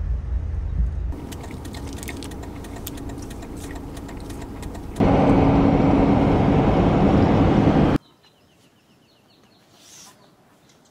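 Inside a Toyota Land Cruiser 80-series on the road. A low cabin rumble gives way to steady road noise, which turns loud at highway speed with a steady drone for about three seconds. The road noise cuts off suddenly to quiet outdoor air with a short run of faint chirps.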